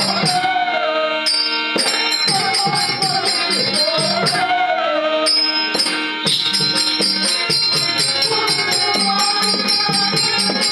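Live folk-theatre music: a voice sings a wavering melody over drum beats and a steady held drone. Regular metallic jingling of small cymbals or bells runs about four to five strokes a second and stops briefly twice, about a second in and about six seconds in.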